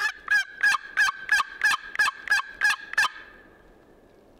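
Hunter's turkey call sounding a fast run of about eleven sharp hen yelps, roughly three a second, then stopping. The call is used to try to shock a tom into gobbling so the hunters can locate him.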